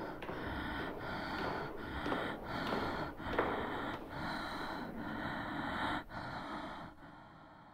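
Quick, heavy, rhythmic breathing, in and out with short breaks about every half second, fading away near the end.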